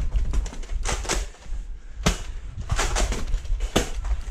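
A string of sharp clicks and knocks, with a quick cluster about three seconds in, over a steady low rumble.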